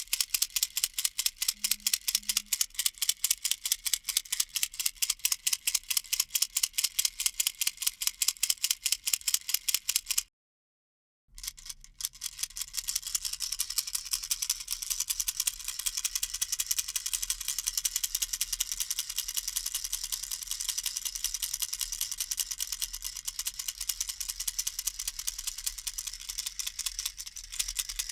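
Baby rattle shaken in rapid, evenly spaced strokes, each a dry rattle of loose pellets. It stops for about a second some ten seconds in, then resumes as a denser, more continuous rattling.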